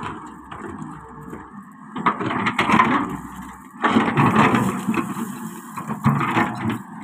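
Solar 130 excavator running while its steel bucket scrapes and grinds against a large stone slab and rubble, with rough crunching scrapes starting about two seconds in and again about four seconds in.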